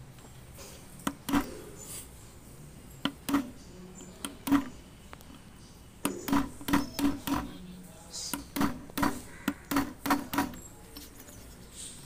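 Hammer blows on a chisel set against the aluminium hub at the centre of a top-load washing machine drum, breaking the hub apart to free the drum. The blows are sharp metallic knocks: three pairs of strikes, then from about halfway a quicker run of roughly three blows a second.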